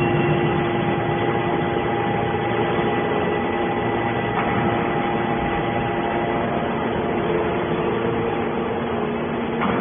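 Heavy machinery running steadily: an engine with a constant whine over it, as from the power unit of a scrap baler.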